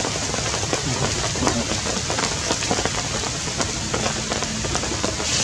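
Steady rain falling, with many individual drops ticking on nearby surfaces.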